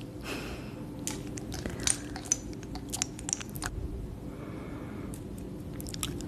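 Glass dropper and glass serum bottle clicking and clinking, a quick run of small sharp taps with some ringing tinkles. Then softer rubbing and a few more clicks as fingers work close to the microphone.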